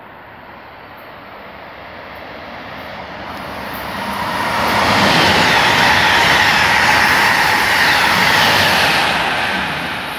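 Amtrak Acela Express high-speed electric trainset passing through the station at speed without stopping: a rush of wheels and air that builds over about four seconds as it approaches, stays loud for about four seconds as it goes by, then fades near the end.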